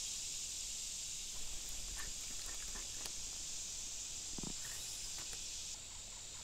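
Steady high-pitched chorus of summer insects, with a few faint clicks and a brief low hum about four and a half seconds in. The chorus eases a little near the end.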